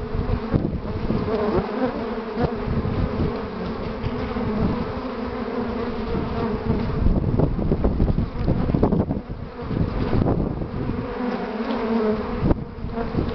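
Honeybees buzzing in a steady, pitched hum as a crowd of foragers lands and jostles at the hive entrance. It is the sound of a busy colony bringing in pollen during a strong willow pollen flow.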